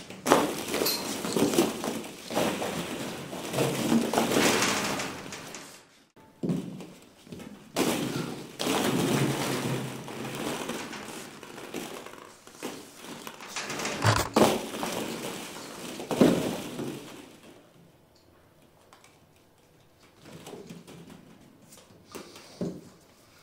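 Plastic ball-pit balls clattering and rustling as a capuchin monkey leaps and scrambles through a pit full of them, with sharp thumps among the rattle. The clatter dies down after about seventeen seconds, leaving only a few light knocks.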